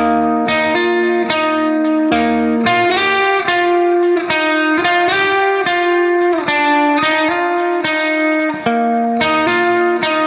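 Background music: a guitar-led instrumental with plucked notes over a low bass line.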